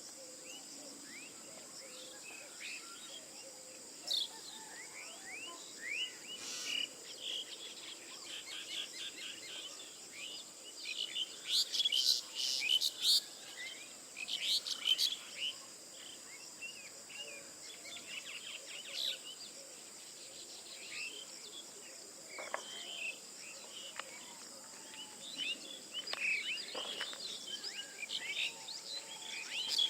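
A dawn chorus of many small birds chirping and calling over a steady high insect drone, with a burst of louder, sharper calls around the middle.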